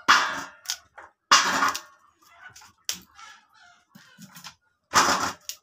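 Cauliflower florets being snapped and cut off the head with a knife: three loud crisp cracking crunches, one right at the start, one about a second and a half in and one near the end, with small clicks between them.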